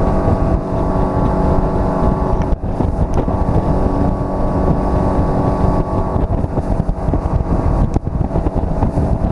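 250-horsepower outboard motor running steadily at speed as the fishing boat planes across the lake, with wind buffeting the microphone and water rushing past the hull. The sound dips briefly twice, about two and a half and eight seconds in.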